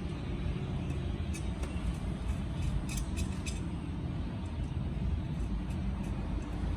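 A steady low rumble, like a motor running, with a few short sharp clicks about three seconds in.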